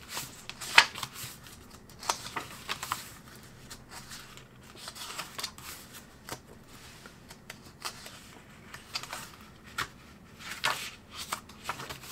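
Paper pages of a sketchbook being turned and smoothed flat by hand: irregular rustles and flaps of paper, the sharpest about a second in.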